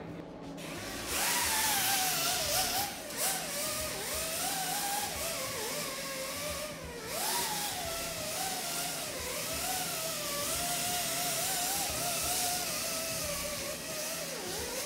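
Pneumatic right-angle die grinder with a sanding disc running at a high whine, its pitch wavering and dipping as it is pressed against a motorcycle frame tube to strip the paint, over a hiss. It starts about a second in.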